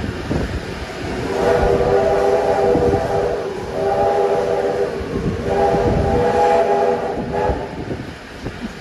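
Steam locomotive whistle sounding three long blasts, the middle one shorter, over the rumbling of the train's carriages.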